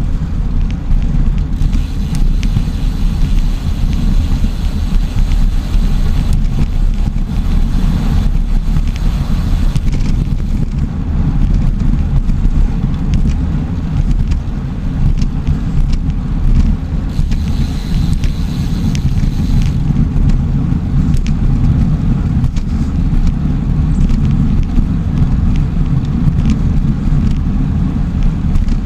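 Wind rumbling steadily on the microphone of a camera mounted on a moving bicycle, with faint clicks and ticks scattered through it. A higher hiss rises over the rumble twice: for several seconds early on and briefly past the middle.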